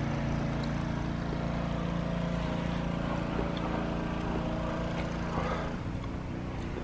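Boat engine idling steadily: a low, even drone with a few constant tones, which shift slightly near the end.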